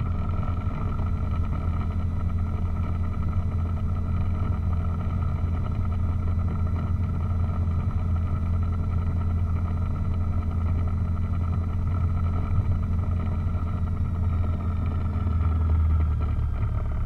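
Piper PA-28 Cherokee's four-cylinder piston engine running steadily at low taxi power, a deep even hum.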